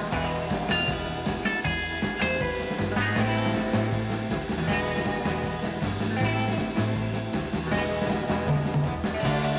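Rock music with guitar over a moving bass line.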